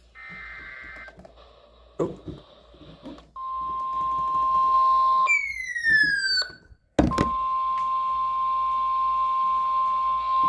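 NOAA Weather Radio alert tones: a brief burst of buzzing SAME data tones, then the steady warning alarm tone. The alarm tone is broken a little past the middle by a falling electronic sweep, and sweeps down again at the very end.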